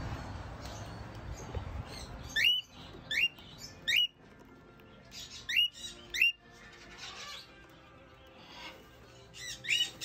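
Cockatiel calling: sharp whistled contact calls that sweep upward. Five come in the middle, and a quicker cluster comes near the end. A low rumbling noise fills the first two seconds.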